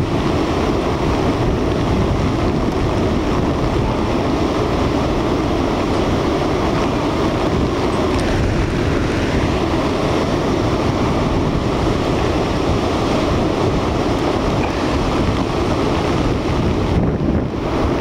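Strong onshore wind blowing across the microphone over the steady wash of heavy, wind-blown storm surf closing out along the beach.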